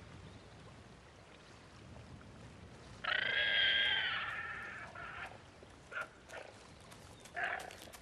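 Guanaco calling: one long, high-pitched call about three seconds in that lasts roughly two seconds and fades, followed by a few short, fainter calls.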